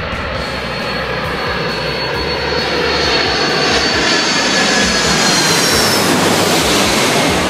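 Four-engined KLM Boeing 747 on landing approach passing low overhead: loud jet engine noise that steadily grows louder, with a thin high whine that drops slightly in pitch as the aircraft comes over.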